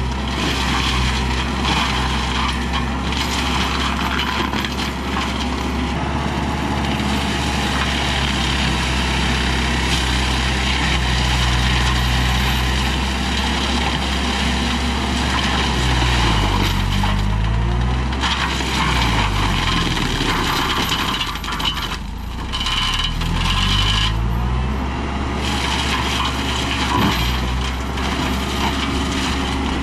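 Kubota tractor engine running hard to drive a PTO mulcher as it grinds into a brush pile, with the steady rush and crackle of the rotor shredding wood. The engine note sags and recovers twice in the second half as the mulcher takes the load.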